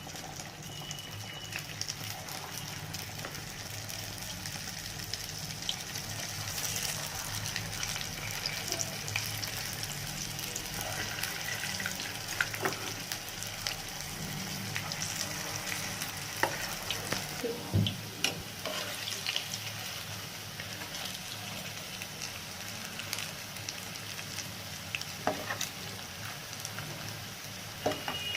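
Furaula, black-lentil (urad dal) batter fritters, frying in hot oil in a kadai: a steady sizzle, with a few sharp clicks now and then.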